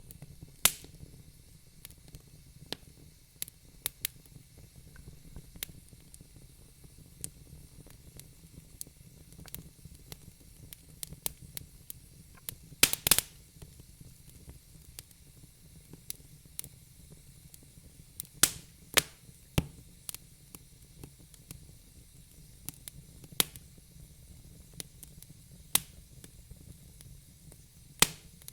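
Wood fire burning in a fireplace: a soft steady background with irregular sharp crackles and pops from the burning logs, a quick cluster of louder pops about halfway through.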